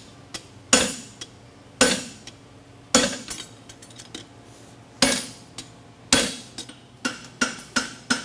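Hammer blows on a red-hot steel horseshoe on an anvil, each ringing briefly: heavy strikes about one a second with a pause in the middle, then a quicker run of lighter strikes near the end, as the hind draft shoe is forged to shape.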